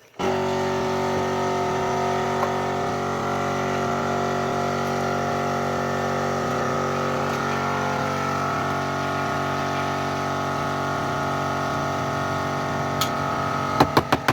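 A machine motor running at a steady pitch, with a constant hum that starts abruptly. Near the end a rapid run of sharp clicks begins.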